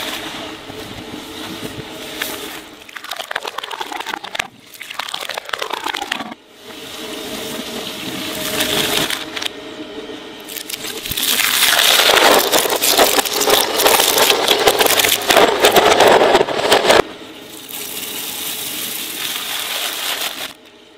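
A twin-shaft shredder's steel cutters grind and tear through kitchen scouring sponges. After a cut, they chew through a handful of paper prop banknotes, the loudest stretch. Near the end, the machine runs at a lower, steadier level as a bag of dry pasta rides on the blades.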